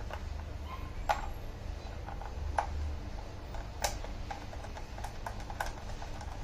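Scattered sharp clicks and taps of hard plastic parts and a screw being handled as an indoor monitor is screwed onto its desktop stand: three louder clicks about one, two and a half and four seconds in, then a run of lighter ticks.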